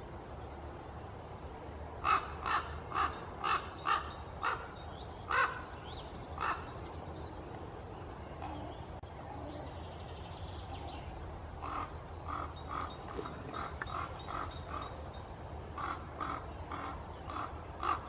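Common raven calling: a quick run of short calls, about two a second, then after a pause a second, fainter run of the same calls.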